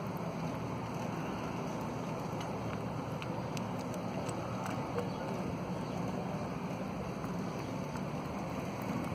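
Steady waterside background noise with a low hum and a few faint ticks.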